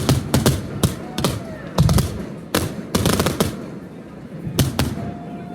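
Fireworks display going off: quick runs of sharp bangs and crackling reports, with the densest flurry around the middle.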